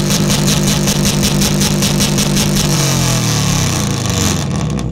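Subaru Legacy's flat-four boxer engine revved and held high through a loud aftermarket exhaust, with a rapid pulsing. From about three seconds in the pitch falls away as the revs drop. The rev is read at about 122 dB on the competition meter.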